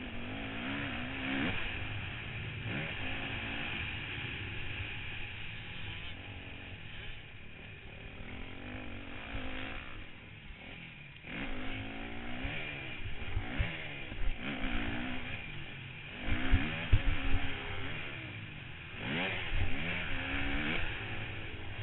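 Motocross bike engine revving up and down again and again through the gears while the bike is ridden hard around a dirt track, heard close from a camera on the bike. Sharp thumps come about two thirds of the way through.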